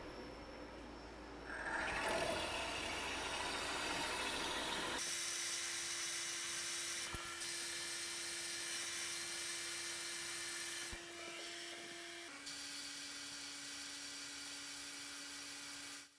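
Milling machine drilling pre-drill holes into the cast-iron center housing of a Mazda 20B three-rotor rotary engine: a gritty cutting noise for the first few seconds, then a steady spindle whine with hiss. There is a sharp click about 7 s in, and the whine drops slightly in pitch about three-quarters of the way through.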